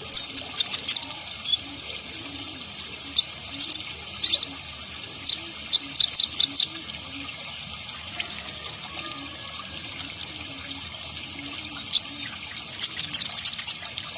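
Kolibri ninja sunbird calling: sharp, high chirps and short twittering runs in scattered clusters, with a pause of several seconds in the middle, over a steady faint hiss.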